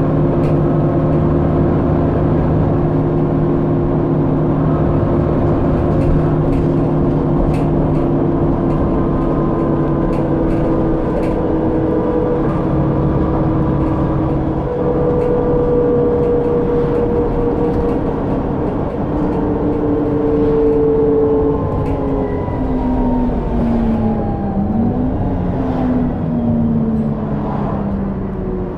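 Alexander Dennis Trident ALX400 double-decker bus heard from inside the lower deck: the engine and drivetrain hum steadily while the bus runs at speed, then their pitch falls steadily over the last several seconds as the bus slows. Light clicks and rattles come from the interior.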